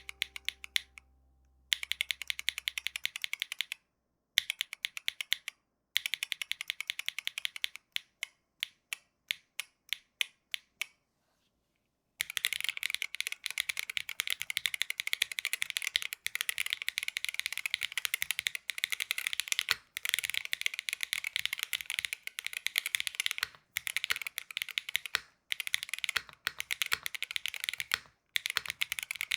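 Keyboard fitted with Kailh White Horse magnetic Hall-effect switches being typed on. There are short bursts of fast typing, then single keystrokes about two a second, then steady fast typing through the second half.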